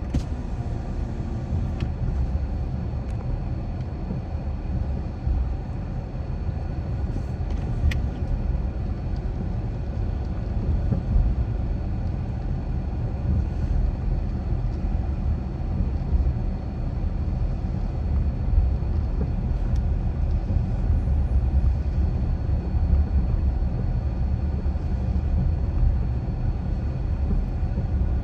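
Steady low rumble of a car driving, road and tyre noise with engine, heard from inside the car.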